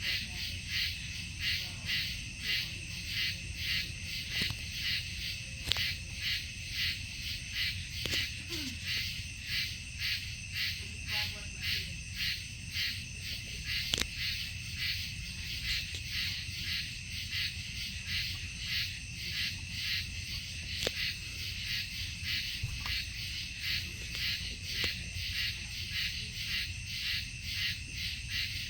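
Night insect chorus, a steady rhythmic chirping pulsing about two to three times a second.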